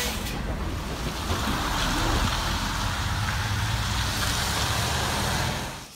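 Livestock lorry running, a steady low engine hum with an even hiss over it, dropping away just before the end.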